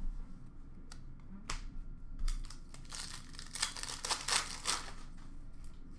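Crinkling and rustling of Upper Deck hockey card pack wrappers and cards being handled and shuffled, with a few sharp clicks. The rustling is busiest a few seconds in.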